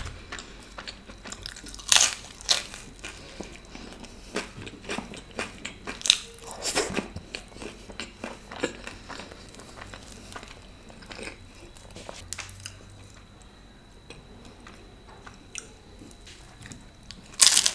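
Close-miked biting and chewing of crunchy food, with loud crunches about 2 s and 7 s in and quieter chewing clicks between. A louder run of crackles comes near the end.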